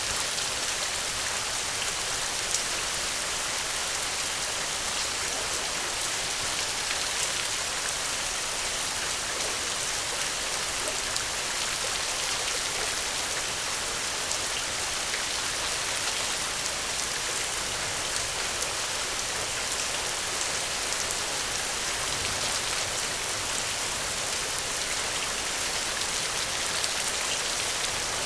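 Steady gentle rain falling: an even hiss with scattered light drop ticks.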